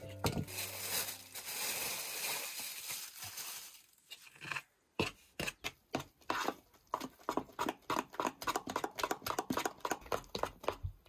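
Rustling for about four seconds, then a fast run of short crisp snips or clicks, several a second, as of hands working at something close by.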